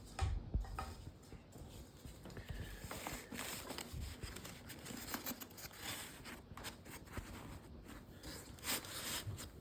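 Shims being pushed and worked in under the ties around a book, tightening the ties so they bite into the leather: irregular scraping and rubbing with many small clicks and taps.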